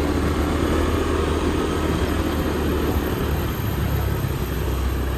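Steady riding noise from a motor scooter on the move: engine running and air rushing past, unchanging throughout.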